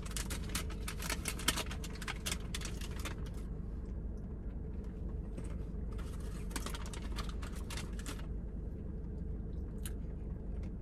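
Pistachios being handled in their crinkly plastic snack bag, with shells clicking and cracking open. The clicking comes in two dense bouts, the second starting about six seconds in after a quieter pause.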